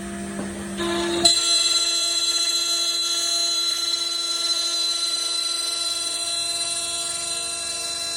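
Small CNC router's spindle motor whining steadily with several high, constant tones, stepping up to full speed about a second in.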